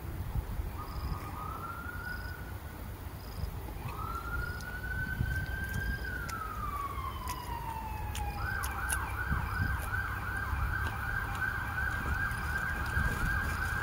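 Emergency-vehicle siren: a wail that rises, holds and slides slowly down, then, about eight and a half seconds in, switches to a fast yelp of about three rising-and-falling sweeps a second.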